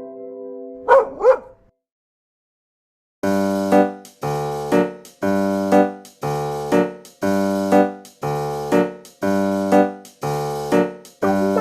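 A miniature dachshund barks twice in quick succession, two short yips. After a moment of silence, background music starts: keyboard chords struck in a steady rhythm, about two a second.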